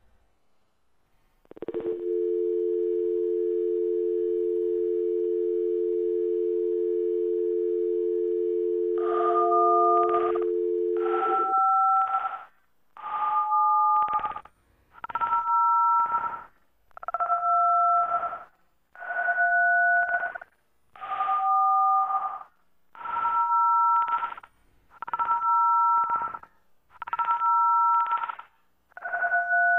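Dial-up modem connection slowed to a tenth of its speed: a steady two-note telephone dial tone from about two seconds in, then touch-tone dialing beginning near the nine-second mark, each digit a drawn-out two-note beep about a second and a half long, coming every two seconds, eleven in all.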